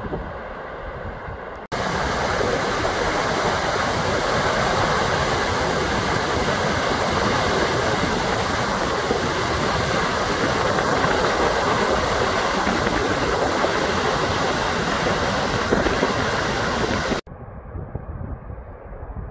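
Steady roar of a large waterfall, falling water rushing evenly, cutting in suddenly about two seconds in and cutting off suddenly near the end. Before and after it, wind rumbles on the microphone.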